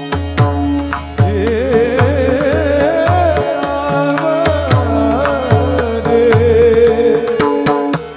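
Devotional kirtan music. A pakhawaj-style barrel drum plays a steady rhythm of deep, falling bass strokes with sharp high strokes, and a wavering melody line with vibrato comes in about a second in.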